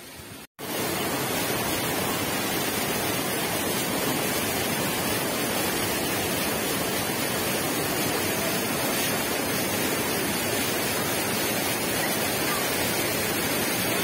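Waterfall pouring over rocks into a pool: a steady, loud rush of water. It cuts in suddenly after a brief dropout about half a second in.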